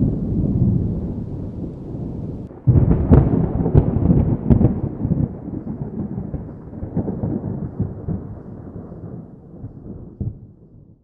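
Thunder: a low rumble, then a sudden loud thunderclap with crackling about three seconds in, which rolls on and slowly fades away.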